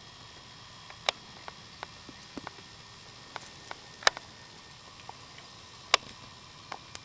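Raccoons foraging and eating on gravelly ground: scattered, irregular sharp clicks and crackles, with three louder snaps about one, four and six seconds in.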